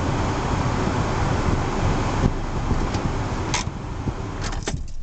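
Steady engine and ventilation-fan noise inside a small car's cabin, with a click about three and a half seconds in. Near the end a few more clicks come and the noise drops away sharply as the car is switched off after parking.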